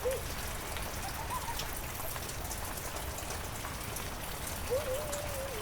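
Heavy rain falling steadily, a dense patter of drops. A few short rising-and-falling calls sound through it, one longer near the end.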